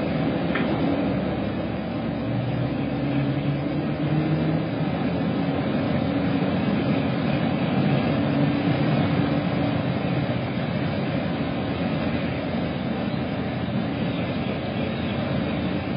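Steady low engine-like rumble with faint humming tones that drift slightly in pitch.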